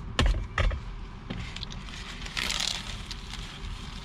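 Two sharp knocks close together, then a brief crinkle of a paper burger wrapper being handled as the burger is lifted to the mouth.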